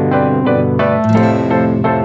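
Background music: a keyboard, piano-like, playing a steady run of notes at about four a second over sustained lower notes.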